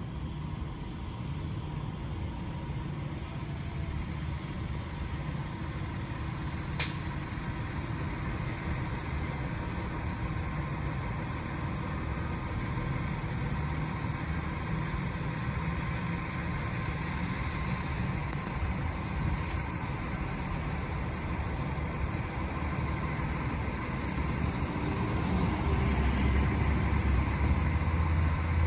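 Fire engine's diesel running with a steady low rumble that grows louder near the end as the truck pulls closer. One sharp click comes about seven seconds in.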